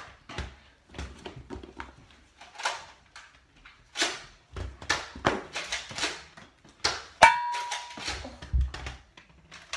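Nerf blasters firing and being cocked, with foam darts hitting furniture and walls: a string of sharp clacks and thuds at irregular intervals. About seven seconds in, a steady beep-like tone sounds for about a second.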